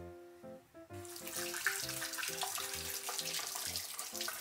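Kitchen tap running, starting about a second in, with background music playing throughout.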